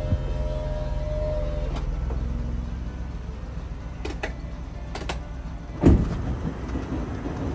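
Daihatsu Copen GR Sport's electric retractable hard top finishing closing: the top's motor whine cuts off about two seconds in, followed by a few sharp clicks and a single thump near the end, over a steady low rumble.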